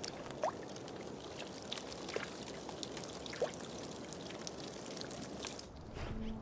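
Water running and trickling, with small gurgles and clicks. Near the end the water fades and music with long held tones begins.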